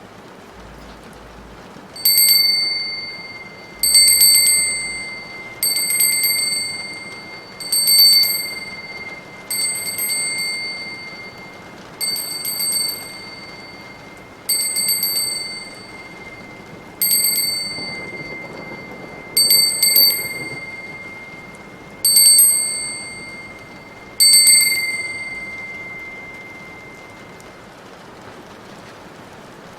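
A small high-pitched metal bell is struck about a dozen times, roughly every two seconds, each ring fading away. Steady rain hisses underneath.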